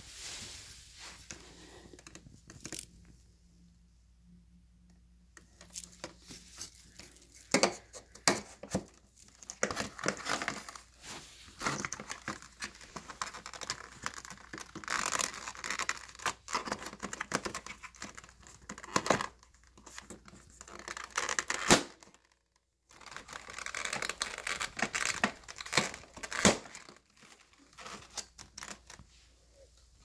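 Irregular handling noise: scattered sharp clicks and knocks with rustling, scraping stretches in between, and one sharp knock followed by a brief dropout a little past the middle.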